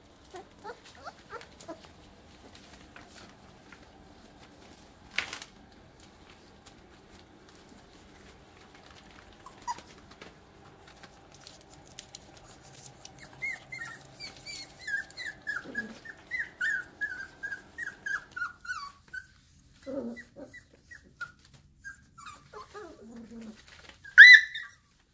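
Airedale Terrier puppies, about four and a half weeks old, at play. A run of short, high whimpers and squeaks comes in the middle, then a couple of low grunts, and one sharp yelp near the end is the loudest sound.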